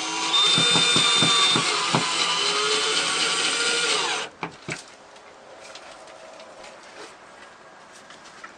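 Power drill running steadily for about four seconds, then winding down and stopping, followed by a few faint clicks.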